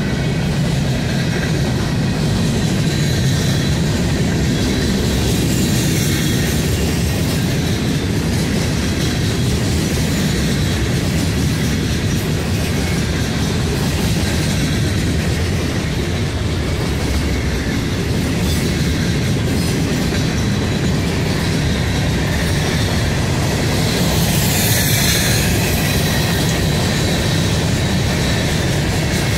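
Freight train cars rolling past close by: a steady, loud rumble and rattle of steel wheels on the rails and of the car bodies, with a faint high squeal from the wheels.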